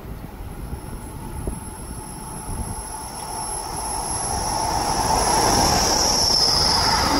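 An NJ Transit commuter train led by a Bombardier ALP46 electric locomotive, hauling multilevel cars, approaches and passes close at speed. The rumble and high hiss of its wheels on the rails grow steadily louder, loudest near the end.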